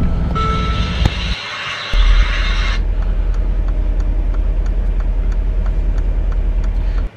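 Car driving at night, heard from inside: a steady low road and engine rumble, with a hiss over it for the first few seconds and a brief dip about a second and a half in. The rumble cuts off suddenly near the end.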